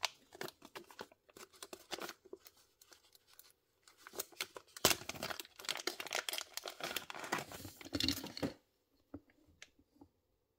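A small clear plastic bag crinkling and tearing as it is opened by hand. The irregular crackling stops about eight and a half seconds in, and a few faint ticks follow.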